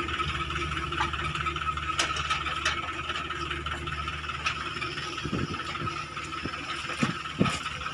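Heavy diesel machinery running steadily at a distance, a constant low engine hum with a thin steady whine, plus a few faint clanks.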